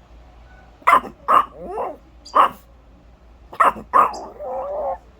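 A chihuahua making weird gremlin noises: five short, sharp barks, with wavering grumbles after the second and the last bark.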